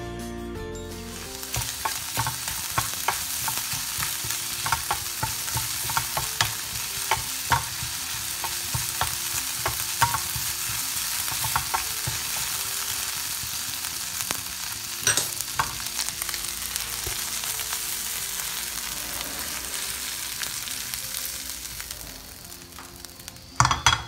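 Shrimp frying in butter in a nonstick frying pan, sizzling steadily while a wooden spatula stirs them with frequent light clacks against the pan. The sizzle dies down a few seconds before the end, and a loud knock comes near the end.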